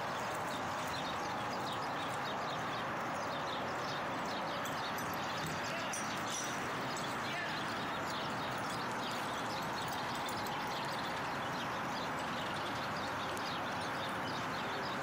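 Steady outdoor background noise with faint distant voices and a light, irregular patter of small ticks.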